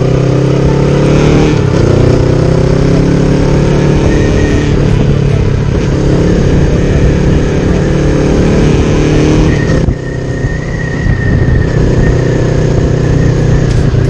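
Honda Rebel 500's parallel-twin engine running steadily while riding, with a brief dip in level about ten seconds in.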